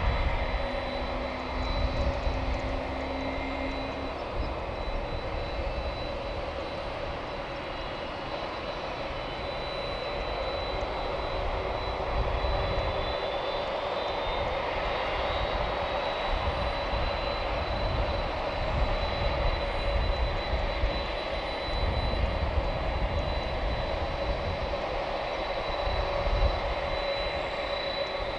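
Boeing 767 jet engines idling, a steady high whine over a broad rush and low rumble; a lower hum fades out about four seconds in.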